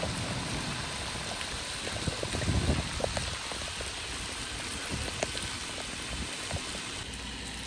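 Heavy rain falling on wet solar panels: a steady hiss with scattered drops ticking. There is a low rumble of wind on the microphone about two to three seconds in.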